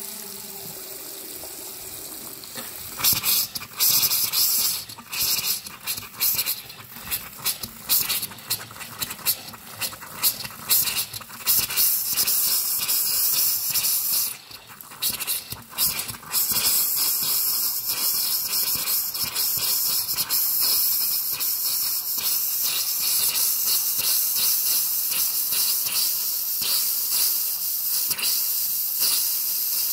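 Water running hard from a bathroom sink tap and splashing into the basin as a loud, steady hiss. From about three seconds in to about sixteen seconds it surges and breaks up, then it settles.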